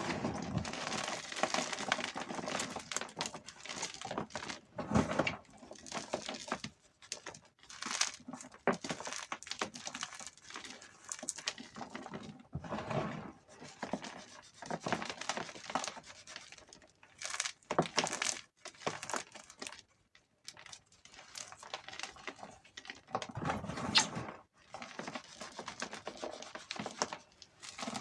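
Blocks of gym chalk crushed between the fingers, crumbling with crisp, crackly crunches in irregular bursts, with short pauses between handfuls.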